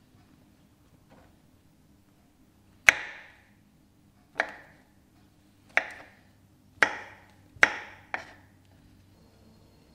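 Kitchen knife chopping brown mushrooms on a wooden cutting board: six sharp, separate knocks of the blade hitting the board, starting about three seconds in and coming faster toward the end.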